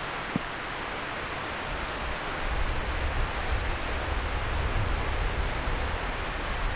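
Steady outdoor background noise with a low rumble, a few faint, short, high bird chirps scattered through it, and one soft knock near the start.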